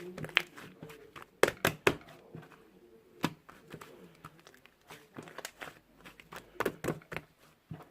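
Irregular clicks, taps and light crinkling, as of objects being handled, with a few sharper knocks about one and a half, three and a quarter, and six and a half seconds in.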